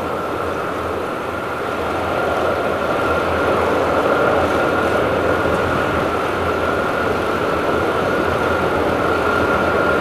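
Boeing 747-400 jet engines running at taxi power: a steady rushing hum with a steady high whine, growing a little louder after about two seconds.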